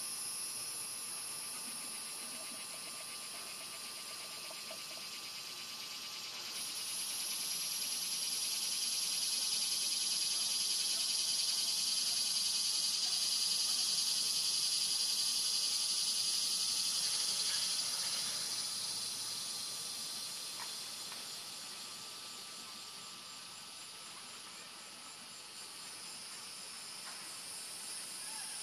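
Chorus of insects buzzing, a steady high-pitched hiss that swells louder about a quarter of the way in and dies back down past the middle.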